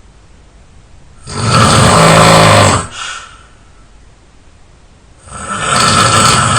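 A person snoring in their sleep: two loud snores about four seconds apart, each lasting about a second and a half, with quiet breathing between.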